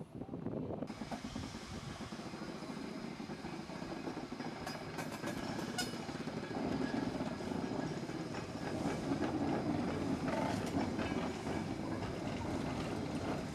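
Small steam tank locomotives working in a yard: a steady rush of exhaust and hissing steam, with a few sharp clanks about five seconds in, growing louder after about six seconds.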